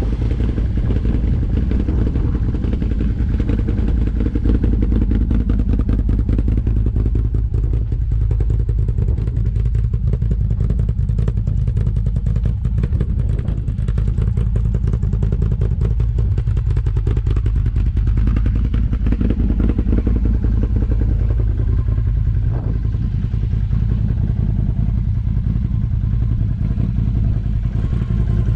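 ATV engine running steadily, with a constant clatter and rattle from the machine.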